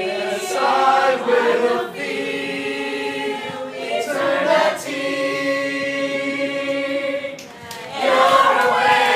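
A mixed group of voices singing a cappella in harmony, holding long sustained chords. The last chord fades about seven and a half seconds in, and excited voices rise loudly near the end.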